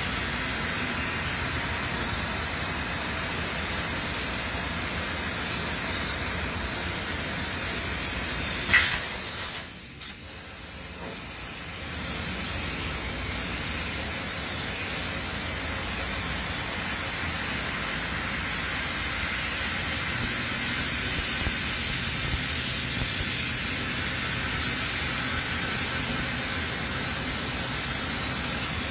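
Steady hissing factory machinery noise. About nine seconds in comes a short, louder high hiss. The noise then drops away for a couple of seconds before the steady running resumes.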